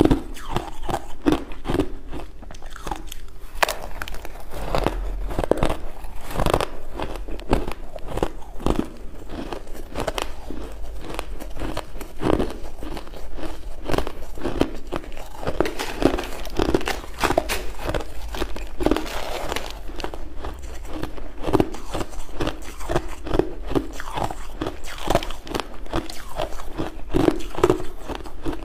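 Crushed ice being bitten and chewed close to the microphone: continuous crisp crunching and crackling, mouthful after mouthful.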